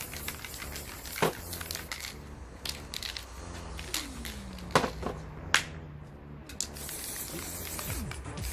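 Aerosol spray paint cans being worked: short bursts of spray hiss and sharp knocks and clicks as the cans are handled. The loudest knock comes about five seconds in.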